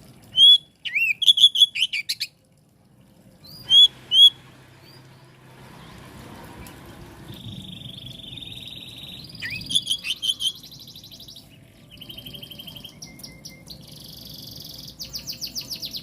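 Oriental magpie-robin (kacer) singing: loud clear whistles and a quick run of notes in the first few seconds, two more loud whistles about four seconds in, then softer buzzy notes and fast rattling trills that grow stronger near the end.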